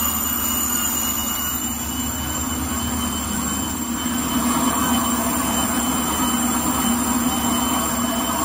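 Automatic kitchen-towel rewinding and edge-embossing machine running at a steady speed: a continuous mechanical rumble with several steady high-pitched whines over it.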